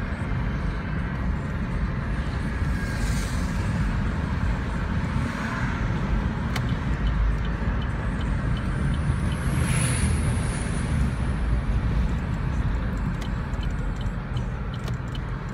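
Steady low road and engine rumble inside a moving car's cabin. In the second half there is faint, even ticking at about two per second.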